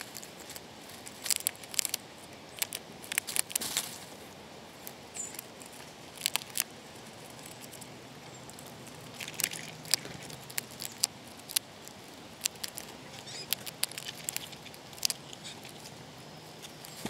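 Small rodent at a pumpkin feeder making irregular clusters of quick, sharp clicks and scratches over a faint steady outdoor hiss.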